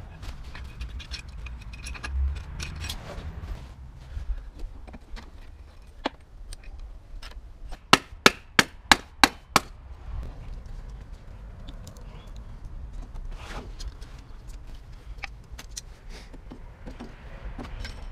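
A hammer striking a wooden block held against the Stels Dinli ATV engine, six quick blows about two-thirds of the way in, knocking the cylinder loose during teardown. Smaller clinks and clicks of metal parts and tools come before and after.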